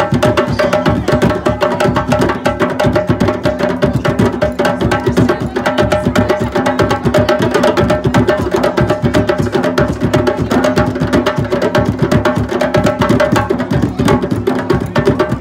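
An ensemble of djembes and larger rope-tuned hand drums played together in a fast, continuous rhythm.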